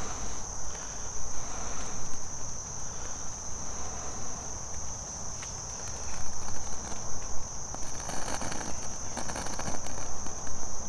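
Steady, high-pitched chirring of insects, one unbroken drone; about eight seconds in, a short patch of faint crackling and rustling joins it.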